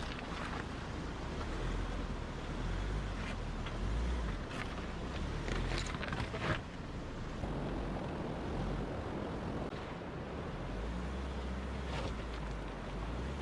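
Mahindra Scorpio 4WD SUV driving over a rough off-road track: a steady low rumble of engine and tyres with wind noise, broken by a few sharp knocks and rattles, several of them clustered around the middle.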